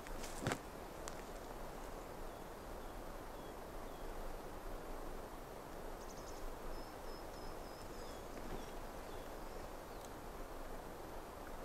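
Pine-forest ambience: a steady soft rustle, with a small bird's short chirps repeated in evenly spaced runs through the middle. A single sharp crunch of a footstep on the dry forest floor comes about half a second in.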